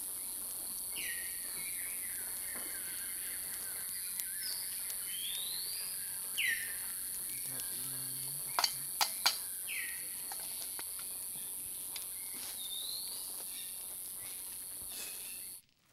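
Forest ambience: a steady high-pitched insect drone with repeated short bird whistles, some sweeping down and some sweeping up. Three sharp knocks or clicks come quickly one after another about nine seconds in, and the drone cuts off abruptly just before the end.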